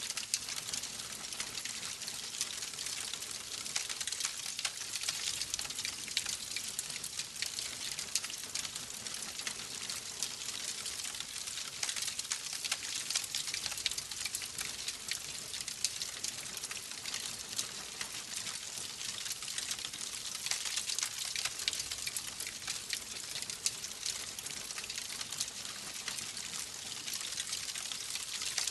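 Wood fire crackling steadily, with a constant hiss full of small, quick pops and snaps.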